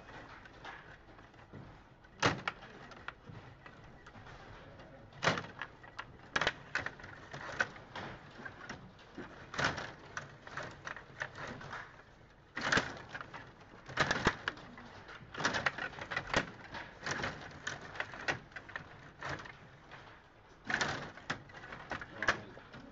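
Rod hockey played on a Stiga Play Off table: the sliding and spinning rods and plastic players give irregular sharp clacks and knocks, some in quick rattling clusters, as the puck is struck and knocked about the rink.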